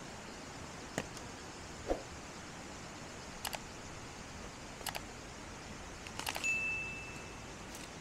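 Sharp knocks and cracks of dry bark and wood being chopped and split with a small hand blade, a strike or a quick pair of strikes every second or so, with a cluster of strikes near the end followed by a short high ringing note. A steady hiss runs underneath.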